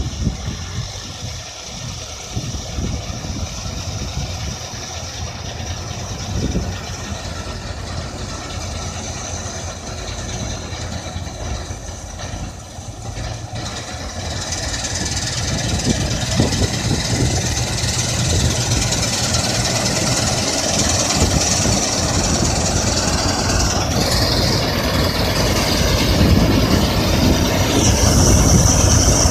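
Combine harvester running steadily in a wheat field: a continuous machine noise with several steady tones, growing louder from about halfway through.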